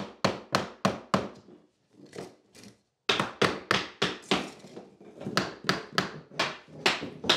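Claw hammer striking a scrap 2x4 block to tap a tongue-and-groove pine floorboard into its neighbour: a steady run of wooden knocks, about three a second, with a short lull about halfway through before they resume.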